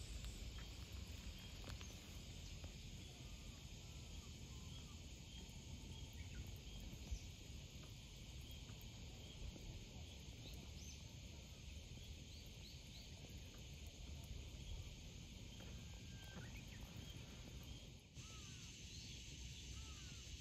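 Faint outdoor ambience: a steady high hiss with scattered short bird chirps over a low rumble, and one sharp click about seven seconds in.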